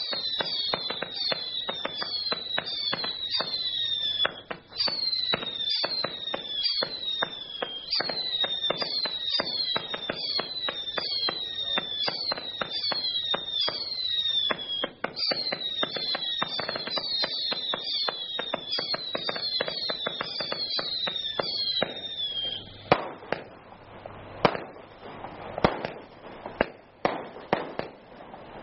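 Brightstar Ion Storm 200-shot barrage firing rapidly: a quick run of shots, each with a whistle that falls in pitch, about two a second, over continuous crackling and pops. Near the end the whistles stop and it finishes with a handful of louder, separate bangs.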